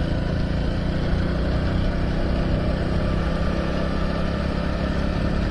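Motorcycle engine running steadily as the bike rides along a road, heard from the rider's seat, with an even low engine note and road noise.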